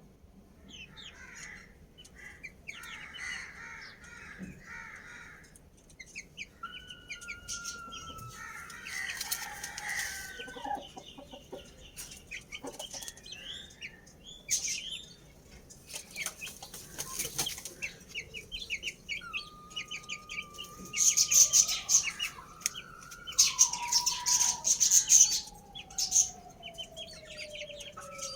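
Roosters crowing: long drawn-out crows, the longest in the second half ending in a slow downward slide. Loud bursts of wing flapping come several times in the second half, with small birds chirping throughout.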